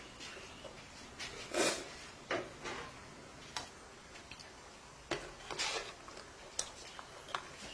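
A spoon clinking and scraping on a plate as rice is scooped up to eat, in irregular short clicks and brief scrapes.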